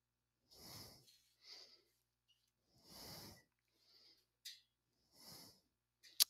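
A man breathing quietly into a close headset microphone: soft breaths about every second, with one small click about four and a half seconds in.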